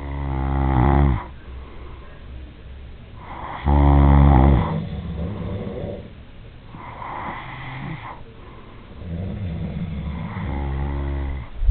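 A sleeping man snoring in loud, rattling snores that come every few seconds, with breathy exhales between them.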